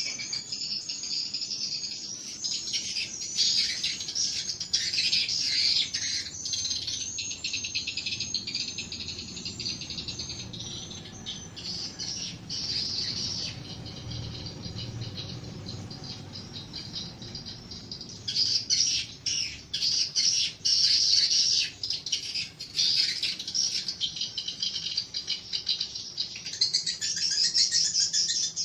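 Swiftlets twittering: dense, rapid, high-pitched chirps that thin out for a while and come back loud about eighteen seconds in.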